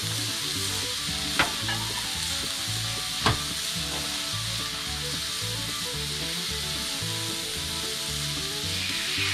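Omelette eggs sizzling in a hot frying pan, with two sharp clicks about one and a half and three and a quarter seconds in.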